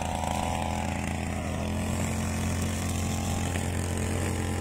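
A small engine running steadily at an even speed, a continuous low drone that does not change.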